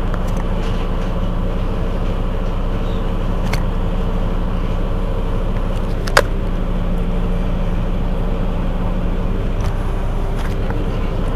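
Mercedes-Benz Citaro C2 city bus idling at a standstill, its rear-mounted engine running with a steady low note. There is a single sharp click about six seconds in.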